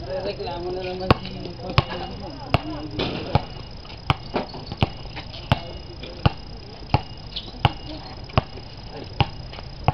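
A basketball being dribbled on a hard court, bouncing steadily about every three-quarters of a second, with people talking near the start.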